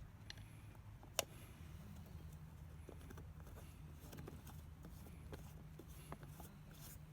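Campfire crackling faintly: scattered small wood pops, with one sharper pop about a second in, over a steady low rumble.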